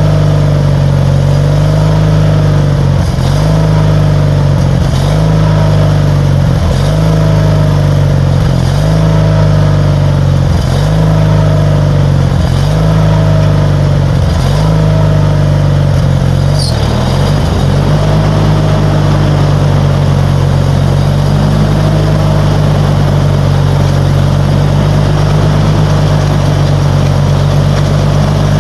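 Riding lawnmower's engine running steadily under load, its pitch dipping briefly about every two seconds, then holding steady for the last ten seconds or so. A single sharp click comes just after the halfway point.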